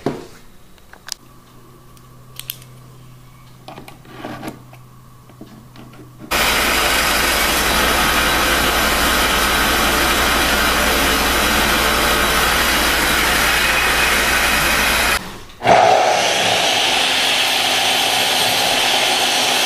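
Power saws cutting wood: after a few seconds of faint hum and small clicks, a scroll saw starts and runs steadily for about nine seconds, then cuts off. Moments later a miter saw starts up and runs through a cut in a pine board.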